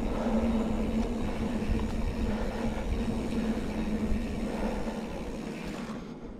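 Mountain bike rolling along a dry dirt singletrack: tyre and drivetrain noise with wind rumble on the camera microphone and a steady low hum. It gets quieter about six seconds in, as the hiss fades.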